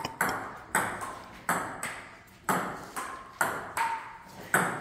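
A plastic table tennis ball being hit back and forth in a rally: sharp clicks off the bats alternate with pinging bounces on the table, about two a second.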